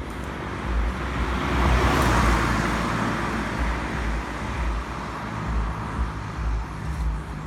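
Road traffic: a vehicle passing, its noise swelling to a peak about two seconds in and then easing off, over a steady low rumble.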